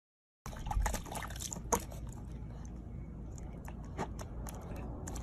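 Silence for about half a second, then a puppy pawing and splashing at water in a small plastic tub: sloshing and dripping with a few sharp splashes over a steady low background rumble.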